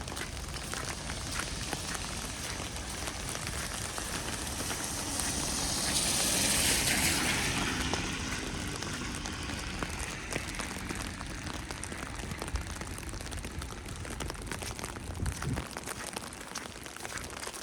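Steady patter and hiss of falling wet snow, with many fine ticks throughout; a louder rushing hiss swells and fades about six to eight seconds in.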